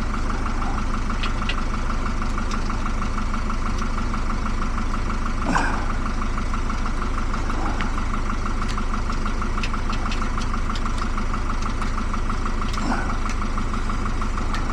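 A steady mechanical drone, like an engine idling, with a few faint clicks and a light tap about five and a half seconds in.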